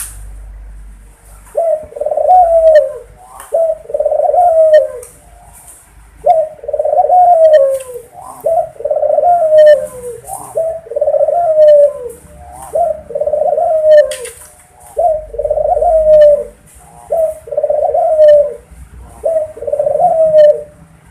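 Puter dove cooing over and over: short arching coos, about one a second, in runs with brief pauses between them.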